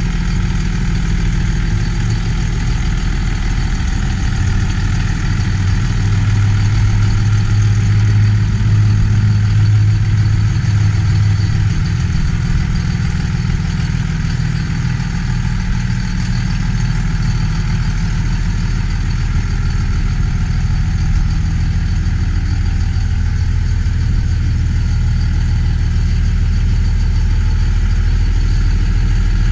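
2001 Dodge Ram 2500's 24-valve 5.9-litre Cummins turbo diesel idling steadily.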